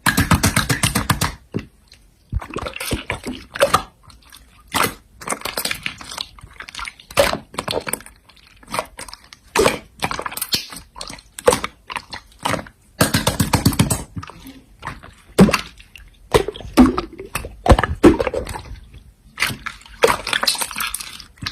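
Slime being squished and pressed by hand: irregular wet clicks, pops and squelches.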